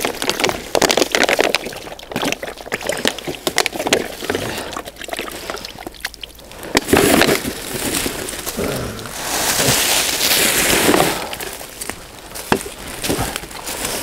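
Crinkling of a plastic rubbish bag and crunching of dry leaves underfoot as litter is picked up and stuffed into the bag, with a few sharp clinks of glass.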